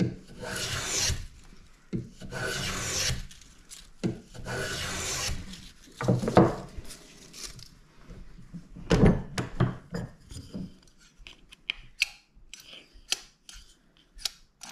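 Small brass finger plane shaving a spruce violin bass bar to thickness: three long rasping strokes in the first five seconds. Then a few knocks and light clicks as the plane is set down and the bar is handled for measuring.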